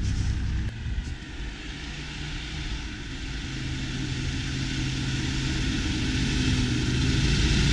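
Land Rover 4x4's engine pulling steadily through deep snow as it approaches, growing louder throughout, with a broad hiss of snow churned up by the tyres.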